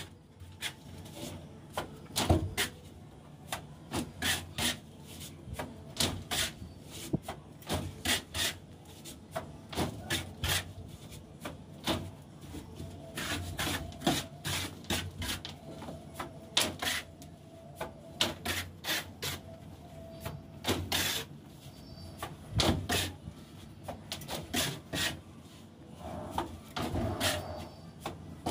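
Steel mason's trowel scraping and scooping cement mortar off a concrete floor in sharp, irregular rasping strokes, a couple a second, with the odd slap of mortar thrown onto the ceiling.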